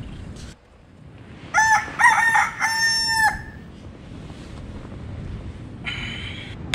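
A rooster crowing once, about a second and a half in: a few short rising notes, then a longer held note that breaks off.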